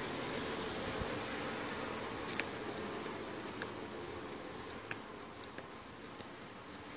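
Steady hum and hiss of running backyard pool equipment, gradually fading, with a few faint ticks.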